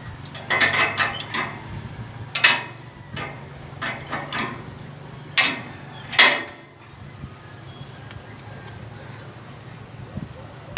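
Irregular sharp metallic clicks and clanks, a quick cluster near the start and then single knocks every second or so until about two-thirds of the way through, over a steady low hum.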